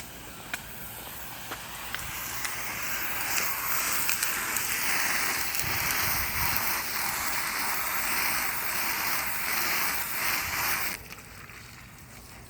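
Garden hose spraying water onto a freshly painted metal bottom plate, washing off the botched wet paint; a steady hiss that builds up and then cuts off suddenly near the end.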